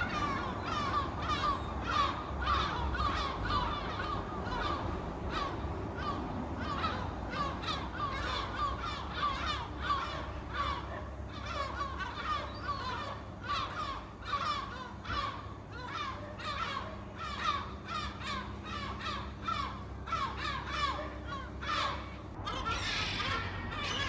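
A flock of gulls calling without pause, many harsh cries overlapping one another.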